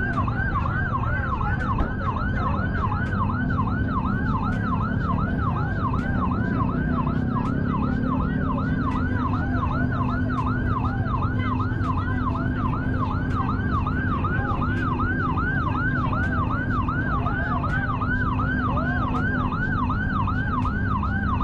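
Ambulance siren in yelp mode, its pitch rising and falling quickly about three times a second, over a low rumble of engines and traffic.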